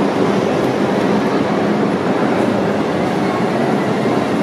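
A 1930s Lisbon remodelado four-wheel electric tram running toward the listener on street track, its wheels on the rails giving a steady noise with a steady low hum.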